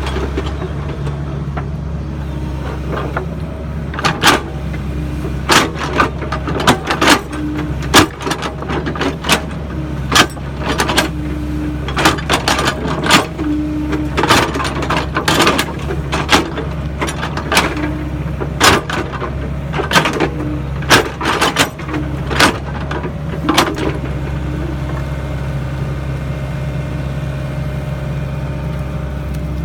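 Sany SY55C mini excavator's diesel engine running steadily under work. From about 4 seconds in until about 24 seconds, it is overlaid by a quick run of sharp knocks and clanks from the digging, then the engine carries on alone.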